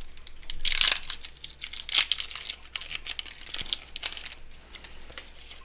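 Foil wrapper of a Pokémon card booster pack crinkling and tearing as it is opened by hand: irregular crackly rustles, loudest about a second in and again about two seconds in, dying away after about four and a half seconds.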